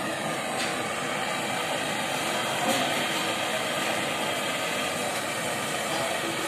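Handheld gas-canister torch burning steadily, its flame held on a copper joint while brazing a refrigerator compressor's discharge line.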